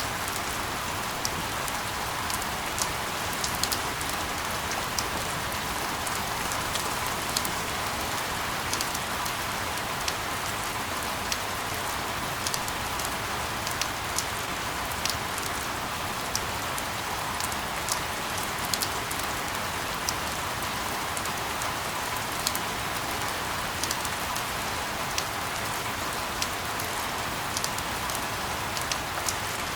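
Steady rain: an even hiss with many scattered sharp ticks of individual drops landing.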